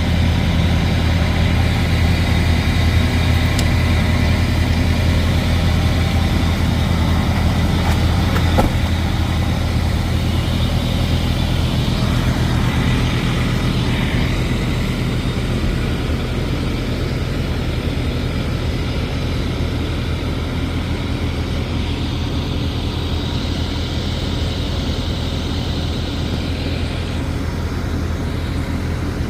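Heavy truck's diesel engine idling with a steady low hum, and one short click about eight seconds in.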